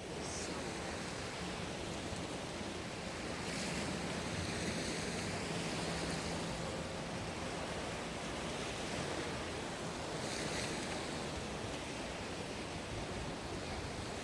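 Sea waves washing onto a beach, a steady rush of surf that swells twice, with some wind on the microphone.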